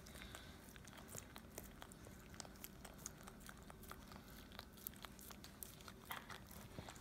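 A dog licking peanut butter off its nose: faint, wet tongue-and-lip smacks and clicks at an irregular pace, a little stronger near the end.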